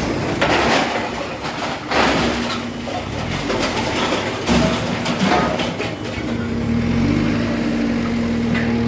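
Machinery running, with three or four loud clanks in the first six seconds, then settling into a steady motor hum.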